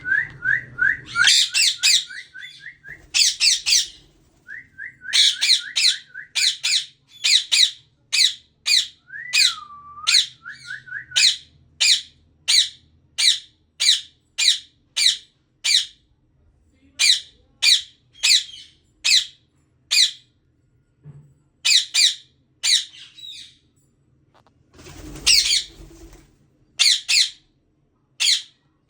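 Ringneck parrot squawking: a long run of short, harsh, high-pitched calls, about two a second. Over the first ten seconds or so these mix with a quick series of lower whistled chattering notes, including one glide that dips and rises again.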